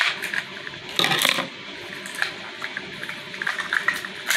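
Scissors cutting at a plastic Mini Brands capsule ball, then plastic clicking and paper crinkling as the ball's segments are pulled open. The loudest rustle comes about a second in.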